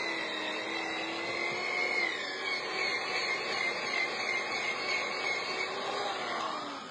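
A machine motor running with a steady whine that wavers slightly in pitch, over a rushing noise, easing off near the end.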